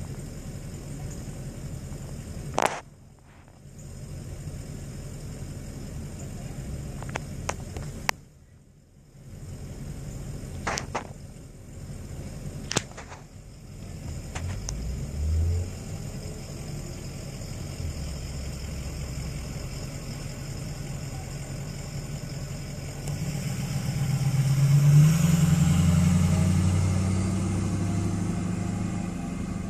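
Road vehicle engine running at low revs, with a few sharp clicks in the first half. Near the end an engine rises in pitch and grows louder, then eases off.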